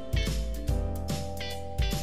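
Background music with plucked guitar notes over a steady bass line.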